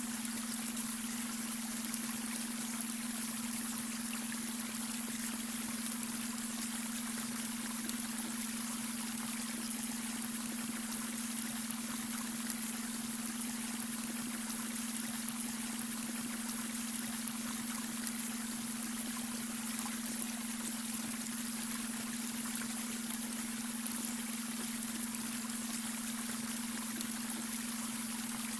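A babbling brook: water running and splashing over stones in a steady, even rush. Under it lies a steady low hum, the added beta-wave brainwave tone.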